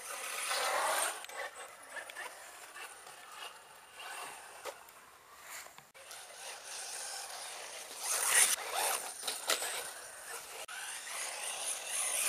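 Radio-controlled buggy driving hard on pavement: its motor whines, rising and falling in pitch as it accelerates and lets off, with rough bursts of tyres scrabbling over the grit, loudest about eight to nine seconds in.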